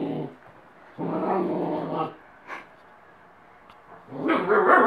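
White shepherd puppy howling in low, drawn-out calls: one trailing off just as it starts, another about a second long a second in, then a louder, higher howl near the end.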